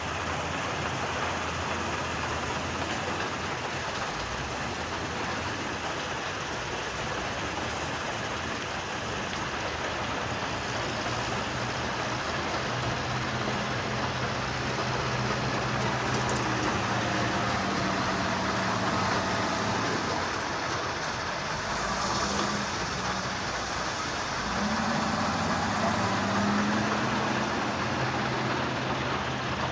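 Heavy construction machinery running with a continuous loud rumble. An engine note holds steady through the second half and rises and falls briefly near the end.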